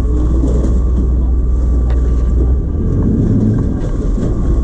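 Cruise-ship lifeboat's inboard diesel engine running, heard from inside the enclosed cabin: a loud steady low rumble. It drops about two and a half seconds in and comes back up near the end as the throttle is eased and reopened while manoeuvring alongside the tender platform.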